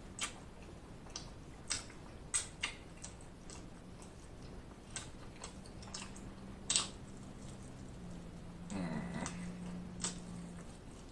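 Close-miked eating of chicken wings: sharp, irregular wet clicks and smacks of chewing and biting on the meat, with a short low hum from the eater about two-thirds of the way in.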